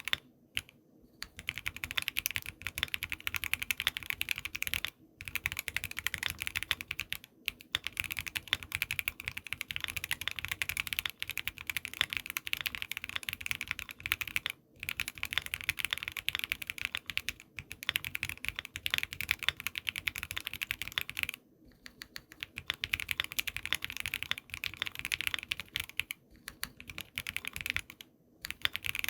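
Fast typing on a Voice65% mechanical keyboard with a polycarbonate plate, stock Everglide V3 Water King linear switches with factory-lubed springs and Infinikey keycaps: a dense stream of keystroke clacks in runs of several seconds, broken by short pauses.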